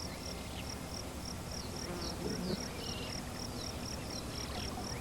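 Insect chirping: a short high pulse repeating steadily about three to four times a second, with faint short downward-sliding calls over it.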